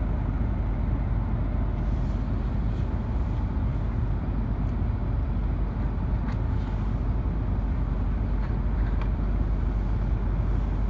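Steady low rumble and hiss of cabin noise inside a Tohoku Shinkansen E2-series car standing at a station platform, with a few faint ticks.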